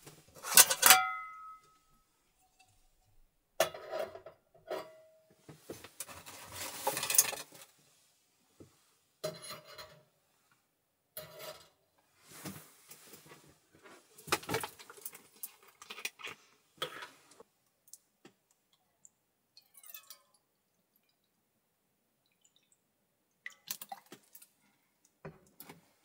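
Metal cookware and utensils being handled to make coffee: a series of separate clinks and rattles, with a ringing clink about a second in and a quiet spell past the middle.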